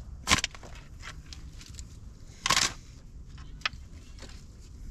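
Sharp knocks and a crunch from wood being worked or broken: one crisp knock near the start, a longer crunching crack about two and a half seconds in, and a light tick a second later, over a steady low rumble.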